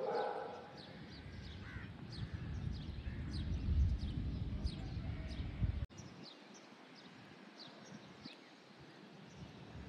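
A bird repeats a short, falling high chirp about twice a second, with a harsh caw right at the start. A low rumble swells through the first half and cuts off abruptly about six seconds in.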